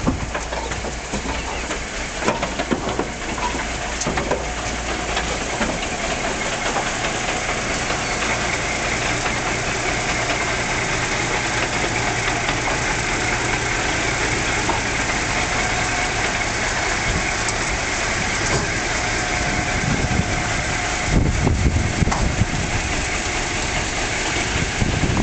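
Diesel engine of a parked road-train prime mover idling steadily. Near the end, wind buffets the microphone.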